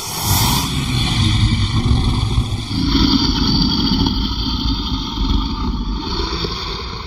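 Custom creature sound effect for Fenrir: a continuous, loud, engine-like rumble that eases off slightly near the end.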